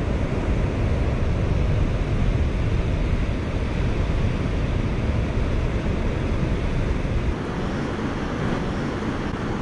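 Steady wind noise buffeting the microphone, with the wash of surf behind it.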